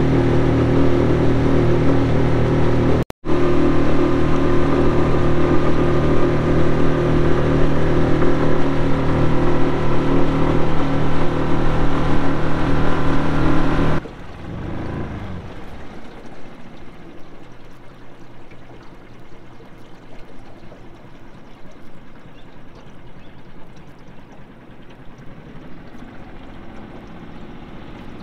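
Small 6 horsepower four-stroke outboard motor running steadily, with a brief dropout about three seconds in. About halfway through, the motor sound stops abruptly and gives way to much quieter, uneven noise.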